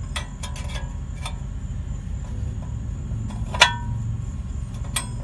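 Small metal clicks of an Allen key working a brake-shoe hold-down screw through the rear hub flange, with one sharp metallic clink about three and a half seconds in and a lighter one near the end, over a steady low rumble.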